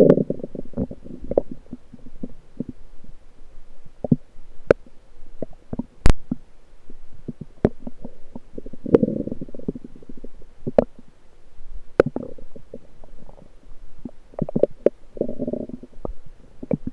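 Lower intestines gurgling, heard through an electronic stethoscope on the belly: bursts of bubbling at the start, around nine seconds in and near the end. Sharp short clicks and pops fall in between, the loudest about six seconds in.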